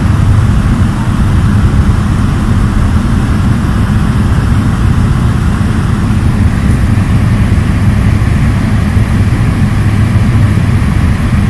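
Fokker 50's twin turboprop engines and propellers running steadily, a loud, even, low drone with a steady hum in it.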